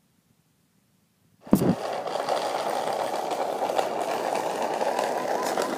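Near silence for about a second and a half, then a small wooden cart's wooden wheels rolling along asphalt: a steady rattling scrape.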